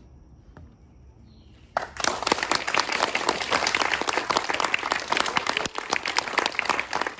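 A small audience applauding. The clapping starts suddenly about two seconds in and runs dense and steady, after a short quiet stretch.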